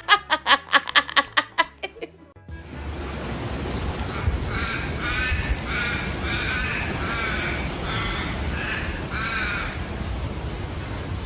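A fast run of fading pitched pulses dies away about two seconds in. After a break, a series of about eight short, evenly spaced animal calls rings out over a steady low rumble of wind or outdoor noise.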